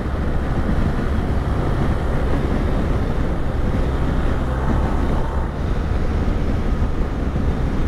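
BMW GS adventure motorcycle running at a steady cruise, its engine a constant low drone under the rush of wind over the microphone.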